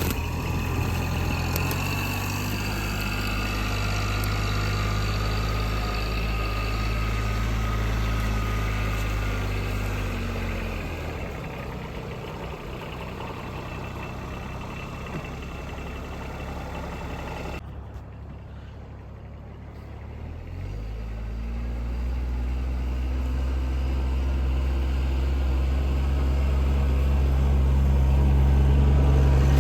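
Kubota side-by-side's diesel engine running under way. Its speed drops about ten seconds in and stays low for about ten seconds, then rises again and grows louder toward the end.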